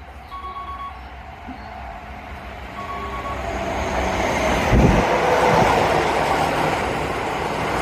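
Keisei electric train approaching along the track, growing steadily louder, with heavy clacks of the wheels over rail joints about five seconds in. A few short electronic beeps sound in the first few seconds.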